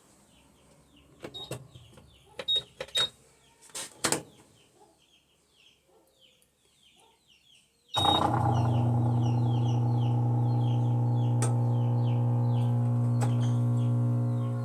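Electrolux LT15F washing machine starting up about eight seconds in with a sudden, loud, steady electrical hum, the noise the machine is being checked for. Before that come a few clicks and knocks, with birds chirping throughout.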